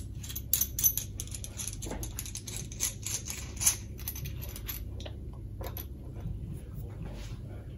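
Small metal hardware clicking and tapping as it is handled and set down on a wooden bench, in a quick irregular run of light clicks that thins out after the first few seconds, over a steady low hum.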